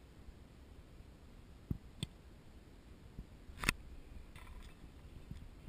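A kicking foot strikes a football held on a tee once, a single sharp thump about three and a half seconds in, heard from some distance. There are a couple of fainter clicks shortly before it.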